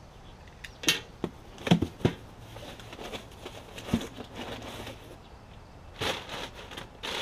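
Cardboard shipping box being handled and opened: several sharp knocks and taps against the cardboard in the first couple of seconds and again about four seconds in, then rustling of the box flaps near the end.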